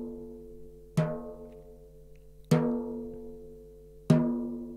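Snare drum batter head tapped once at a time with a drumstick, three single taps about a second and a half apart, each ringing out with a clear, slowly fading tone. This is fine-tuning the head lug by lug so that every tension rod sits at about the same pitch, around 237–240 Hz.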